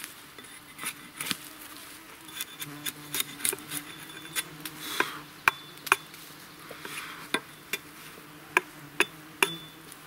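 Small hatchet knocking and scraping along a freshly cut birch pole, trimming it into a shovel handle: a string of sharp, irregular knocks, the strongest in the second half. Insects buzz faintly throughout.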